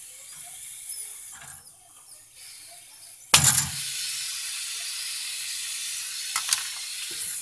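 A freezer's copper capillary tube is snipped with cutting pliers about three seconds in, with one sharp click. The gas pressure charged into the refrigeration circuit then hisses steadily out of the cut tube for about four seconds.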